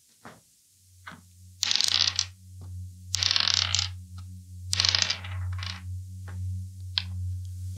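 A few sharp clicks and three rasping, ratchet-like bursts of about half a second each, from a small object being worked by hand, over a low steady hum that starts about a second in.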